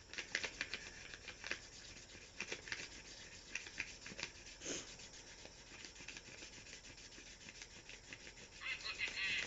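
A felt-tip marker scribbled rapidly back and forth on a brown paper bag, a run of short, faint scratchy strokes as the paper is coloured in over and over.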